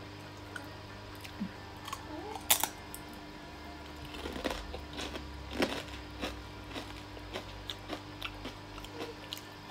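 Homemade peanut peyek, a crisp fried cracker, being broken and crunched in the mouth while chewing. A loud sharp crack comes about two and a half seconds in, more cracks follow halfway through, and then a run of small crunches.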